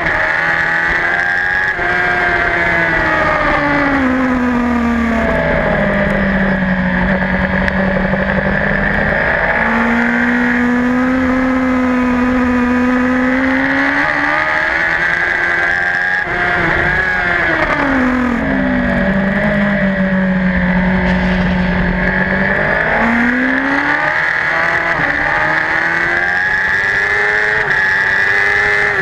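Superbike engine heard from an onboard camera at race pace, its note dropping twice as the rider comes off the throttle and climbing again as he accelerates, held steady in between. Wind noise rushes on the microphone throughout.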